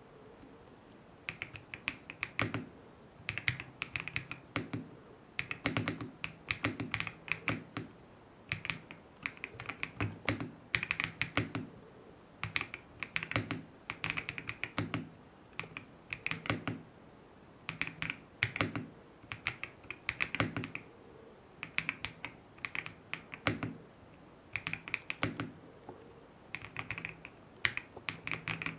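Typing on a Zouya GMK67 plastic-case mechanical keyboard with stock, unlubed Akko Cream Blue tactile switches: quick runs of key clacks broken by short pauses.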